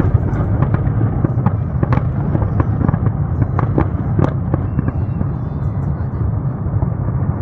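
Fireworks display: a continuous low rumble of shell bursts, with many sharp crackling pops scattered through it.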